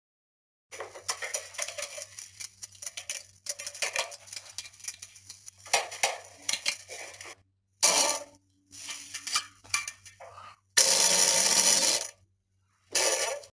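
Diarrhea sound effects: a run of separate crackly, wet-sounding clips cut together with dead silence between them, the loudest a steady rushing burst of about a second and a half near the end.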